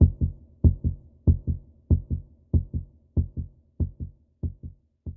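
A heartbeat, steady lub-dub double thumps about one and a half pairs a second, fading slowly and stopping at the end.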